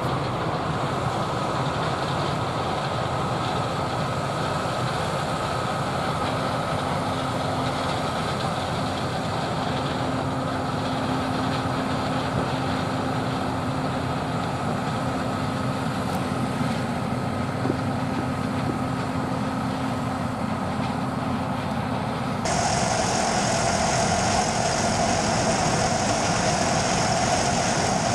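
John Deere 9570 STS combine running steadily while harvesting corn, heard from across the field, with a steady engine and machine hum. Near the end the sound switches abruptly to the louder, close-up noise of the combine's corn head working through the stalks.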